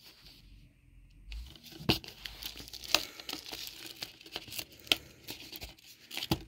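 Plastic shrink-wrap on a Blu-ray case crinkling and crackling as the case is handled, with a few sharper clicks. It starts a little over a second in.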